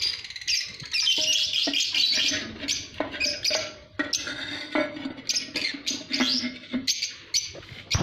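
A flock of lovebirds chattering with dense, rapid high chirps, with scattered clicks and knocks of handling mixed in.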